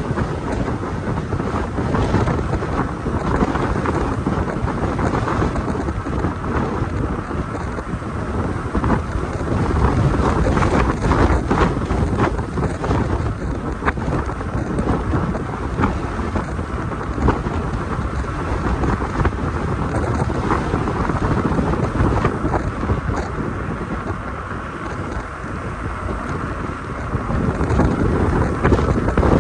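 Wind buffeting the microphone, a heavy low rumbling rush with a few faint ticks. It eases a few seconds before the end, then rises again.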